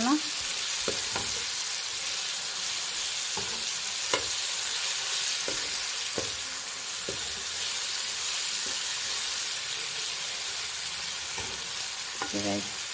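Chicken pieces and mushrooms sizzling steadily in oil in a nonstick frying pan as they are stirred with a metal spoon, with occasional light scrapes and taps of the spoon against the pan.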